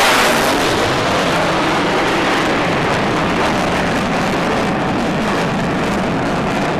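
Twin turbofan engines of an F-15DJ fighter jet at high power in a close pass. Loudest just as it opens, it then holds a steady, dense rushing jet noise.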